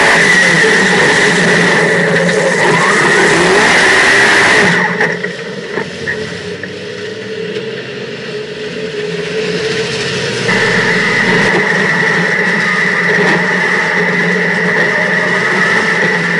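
Dirt modified race car's V8 engine heard from inside the cockpit, running hard at racing speed. About five seconds in it drops sharply to a low-speed run as the driver lifts for a caution. It picks up again to a steady pace about ten seconds in.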